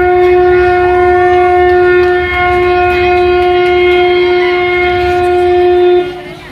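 Dance music with a wind instrument holding one long, steady note, which cuts off about six seconds in.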